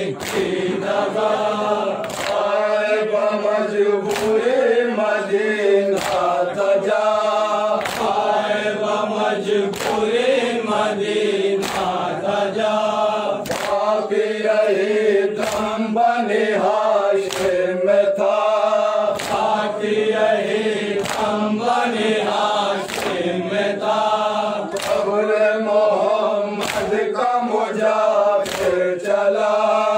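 Men chanting a noha (mourning lament) together, led into a microphone, with chest-beating (matam) slaps about once a second keeping the beat.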